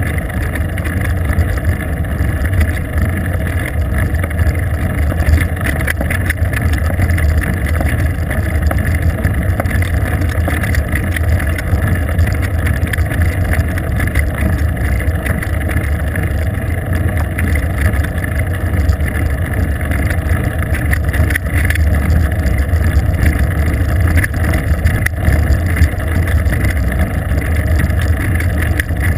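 Steady low rumble of wind and tyre-on-asphalt road noise picked up through a bicycle-mounted GoPro camera while riding on pavement.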